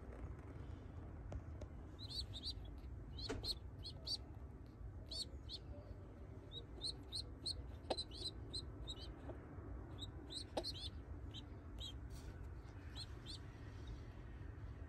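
Young racing pigeon squabs peeping in short, high squeaks, dozens of them from about two seconds in, as they react to a hand touching them. A few faint clicks from the handling fall among them.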